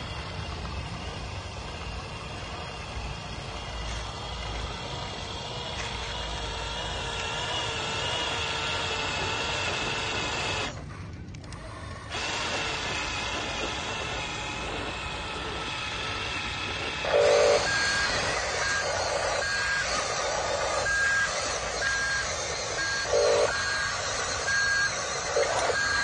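Electric drive motors and gearboxes of Huina RC construction models whining steadily under load. From about two-thirds of the way in, a toy sound module gives evenly spaced short reversing beeps, about one a second, over pulsing simulated engine noise.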